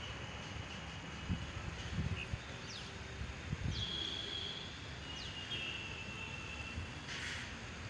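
Outdoor ambience: a steady background hiss with several thin, high-pitched calls from small wildlife, each held for about a second, and a few soft low bumps in the first half.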